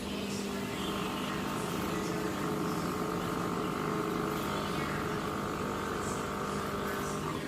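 Small stationary engine (WPM KD135) running steadily while it drives an N500 grinder mill. A higher-pitched whine joins about a second in and stops shortly before the end.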